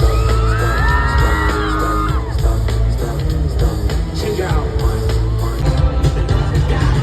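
Loud live hip-hop/pop music over an arena sound system with heavy bass. In the first couple of seconds a high voice yells and glides upward over it.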